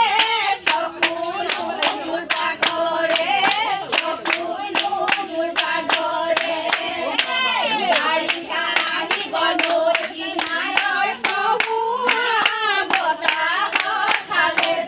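Several voices singing together, accompanied by steady rhythmic hand clapping, about three claps a second.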